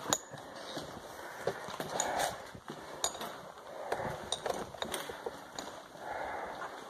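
Footsteps on a gritty concrete basement floor, with irregular small clicks and clinks of debris underfoot.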